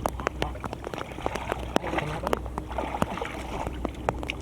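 Water sloshing and splashing as hands grope through shallow muddy water, with many irregular sharp clicks and splats over a steady low hum.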